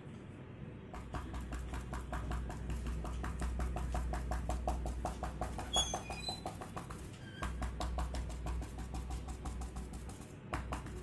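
Paintbrush dabbing paint onto paper in quick, even taps, several a second, stippling tree foliage, with a short break partway through. A brief high chirp sounds about six seconds in.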